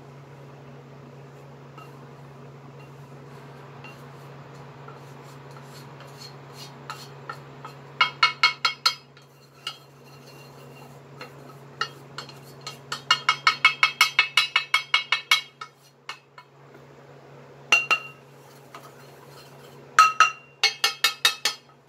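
Stainless-steel pan knocked and scraped with a wooden spatula to empty roasted gram flour into a glass bowl: quick runs of ringing knocks, about five a second, in several bursts starting about a third of the way in. Underneath, a steady low hum from the induction cooktop.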